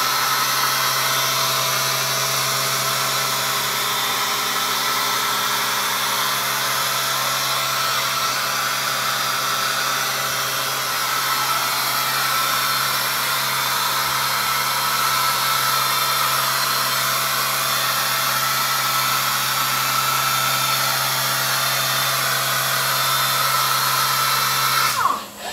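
Stolbek Cosmo sanding robot's sander running steadily on a cabinet door panel: a constant whine over a low hum. Near the end the sander winds down with a falling whine and stops, leaving a quieter hum.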